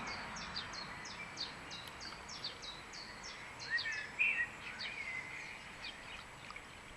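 Birds singing: a rapid run of short, high chirps, each sweeping downward, about three or four a second for the first few seconds, then a lower warbling call about four seconds in, over a faint steady background hiss.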